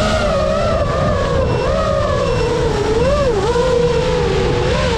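FPV quadcopter's brushless motors whining, their pitch swooping up and down as the throttle changes, over low wind rumble.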